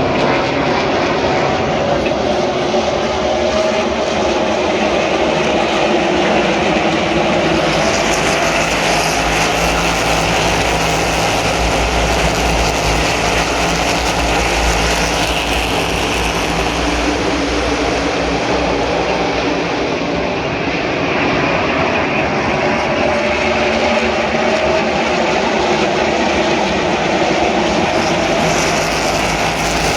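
NASCAR Cup cars' V8 engines running as the field laps a short oval, a continuous loud roar with engine notes rising and falling as cars pass.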